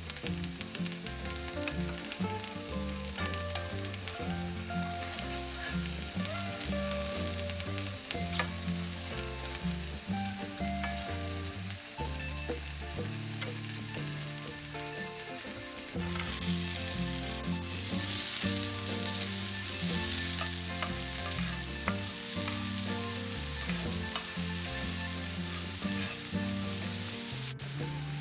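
Food frying and sizzling in a pan while being stirred; the sizzle grows louder about sixteen seconds in. Soft background music with held notes plays underneath.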